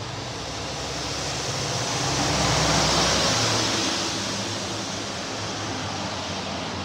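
Steady rushing noise with a low hum from a rotisserie chicken grill and its extractor hood. The rush swells up to its loudest about three seconds in, then dies back.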